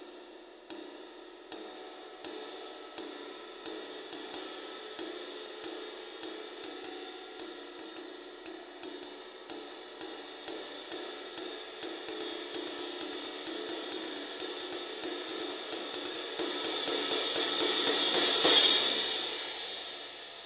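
A 19-inch traditional crash cymbal struck over and over, the strokes coming faster and louder in a building swell that peaks in a loud crash near the end, then rings out and fades.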